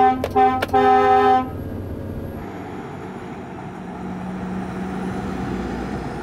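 Lorry horn sounding a few short toots and then a longer blast, ending about a second and a half in. After that comes the steady engine and tyre noise of the loaded lorries driving along.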